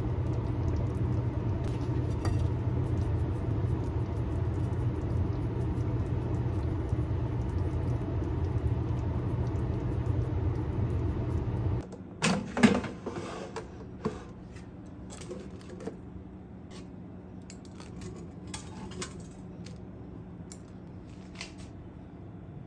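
A steady machine hum cuts off abruptly about twelve seconds in. Light clicks and clatter of kitchenware follow.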